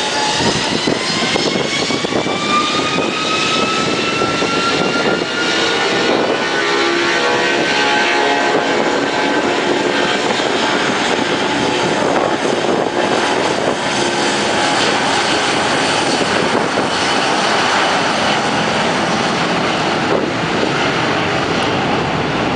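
Boeing 757-200's Rolls-Royce RB211 turbofan engines at takeoff power: a whine rising in pitch over the first several seconds as the engines spool up, then a loud, steady rush of jet noise.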